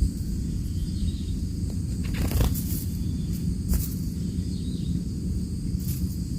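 Outdoor background noise: a steady low rumble with a few brief rustling crackles, about two, four and six seconds in.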